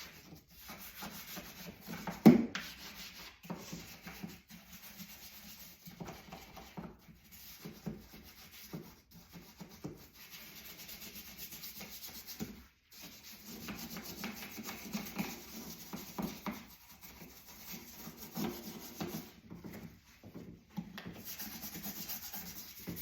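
Scrubbing inside a dishwasher's crevices: irregular back-and-forth rubbing strokes, with one sharp knock about two seconds in and brief pauses between bouts.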